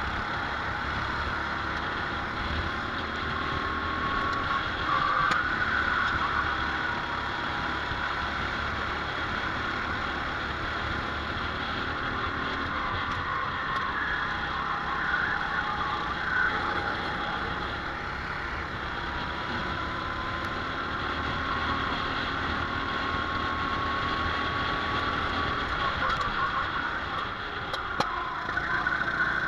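Go-kart engine running at racing speed, heard from on board with other karts close by; its pitch climbs slowly a few seconds in and again about twenty seconds in, as the kart accelerates.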